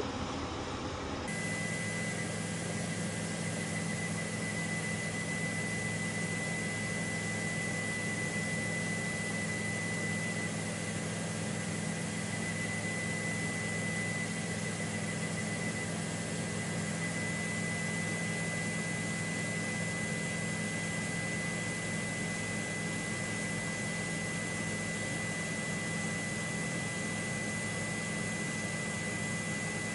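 Helicopter turbine engine noise heard from on board: an even hiss with a thin high whine and a low hum, cutting in abruptly about a second in and holding steady.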